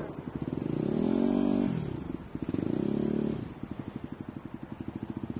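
A vehicle engine revving up and back down twice, then running at low revs with an even, fast pulsing beat.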